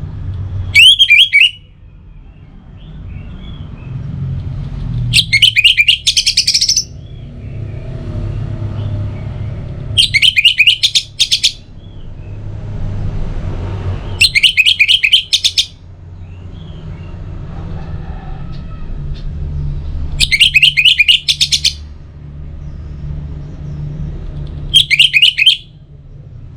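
Orange-headed thrush singing: six short, loud phrases of rapid high notes, about one every four to five seconds, over a steady low rumble.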